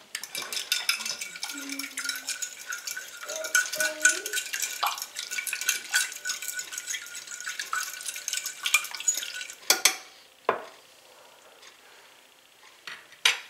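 Fork beating eggs in a ceramic baking dish: fast, continuous clicking and scraping of the fork against the dish. It stops about ten seconds in, followed by a few separate clicks.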